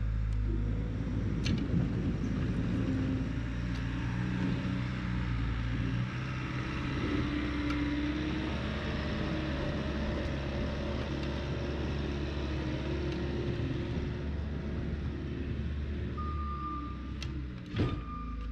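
Engine of heavy equipment running steadily, with a reversing alarm beeping briefly near the end and a sharp click just after.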